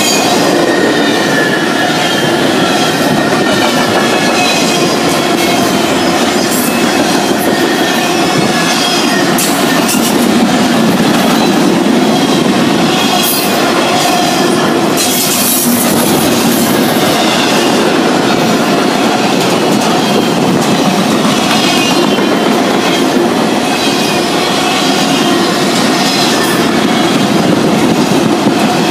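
Loaded double-stack container well cars of a freight train rolling past: steady rumble and clatter of steel wheels on the rails, with wavering high-pitched wheel squeal throughout.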